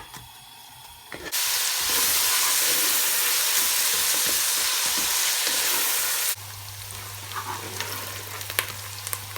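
Sliced onions sizzling in hot oil on a full flame. A loud, even sizzle starts about a second in and drops abruptly to a quieter sizzle with scattered clicks of stirring and a low steady hum.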